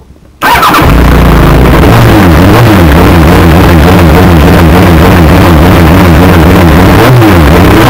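A Formula SAE race car's engine fires up suddenly about half a second in and runs very loud close to the microphone, its revs rising and falling over and over while the car stands still.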